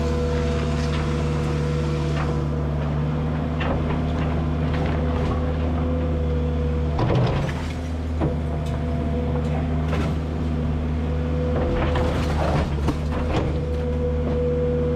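A steady engine drone running throughout, with scattered knocks and clatter of work, the loudest cluster about halfway through and more a few seconds before the end.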